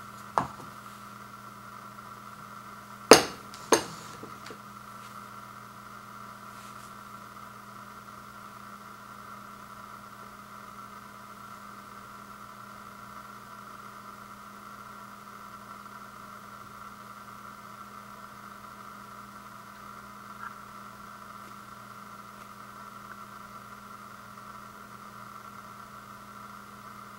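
A steady low hum, with a few sharp knocks in the first four seconds, the loudest two close together about three seconds in: the ice cream cup and bowl being set down on a wooden table.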